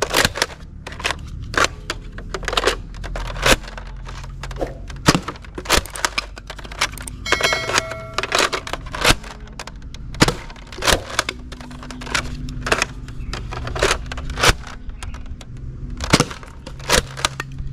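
Nerf Trilogy pump-action foam-dart blaster being pumped and fired over and over: a quick, irregular run of sharp plastic clacks and pops, with darts striking the target cans. A brief ringing tone comes about halfway through.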